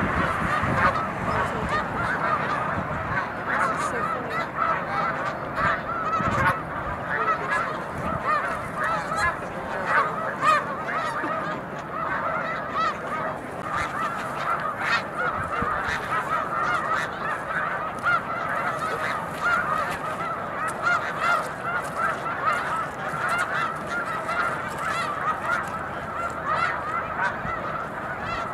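A huge flock of snow geese calling together: a dense, unbroken din of many overlapping honks.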